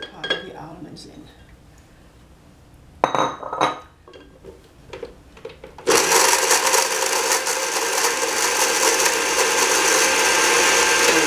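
A few clinks and a brief clatter as almonds go into a glass blender jar. About six seconds in, the blender motor starts abruptly and runs steadily, grinding blanched almonds.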